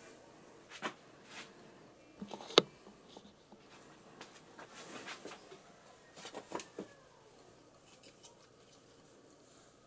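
Light handling noise: a few scattered small clicks and taps, the sharpest about two and a half seconds in, then a short cluster of taps between about five and seven seconds.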